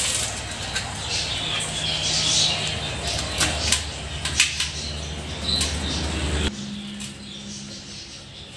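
Paper fan flowers on thin sticks being handled and pushed into a banana stem: light paper rustling and a few sharp clicks of the sticks. Birds chirp in the background, and a low steady hum cuts off abruptly about two-thirds of the way through.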